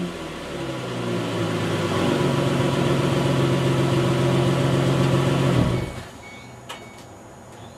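Exhaust of a 2007 Mustang's 4.0 L V6 through a GT takeoff muffler. The engine settles after a rev, rises a little and is held at a steady raised speed, then drops away suddenly about six seconds in.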